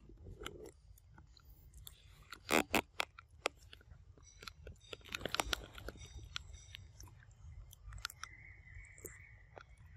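A macaque chewing and biting soft jackfruit bulbs close up: irregular wet clicks and crunches, with two louder bites about two and a half seconds in.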